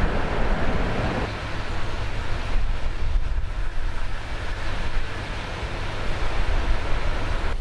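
Wind buffeting the microphone: a steady rushing noise with a gusty low rumble.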